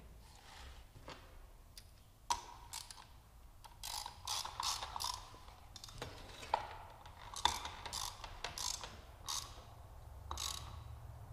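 Irregular metallic clicks and clinks as a circular saw is fitted with a carbide-toothed metal-cutting blade: the blade and saw body handled and the arbor bolt worked with a blade wrench. Several of the clinks ring briefly.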